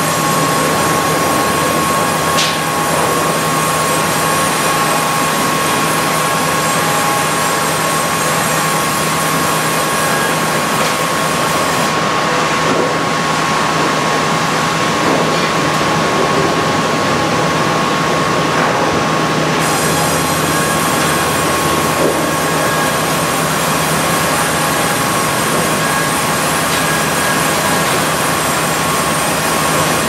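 Hardwood sawmill headrig running: the log bandsaw and its log carriage working a hardwood log, a steady loud machinery noise with a constant high whine and a low hum.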